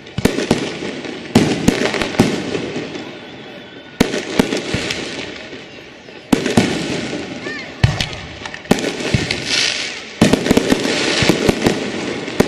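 Fireworks going off in quick succession: about eight sharp bangs, one every second or two, each followed by crackling that fades away.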